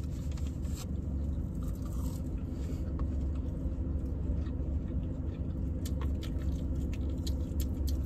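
Chewing and small clicks of a plastic fork and sauce cup while eating chicken wings, over the steady low hum of the car running.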